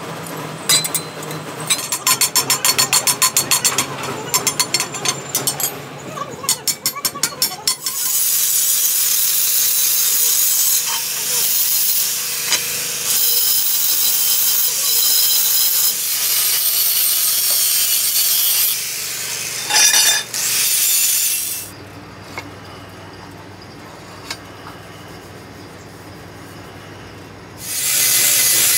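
Handheld angle grinder cutting and grinding a steel truck brake-shoe plate: a loud, steady grinding noise that runs for long stretches, drops to a quieter low hum for a few seconds, then comes back near the end. Before the grinding starts, a quick run of sharp metallic clicks and clatter.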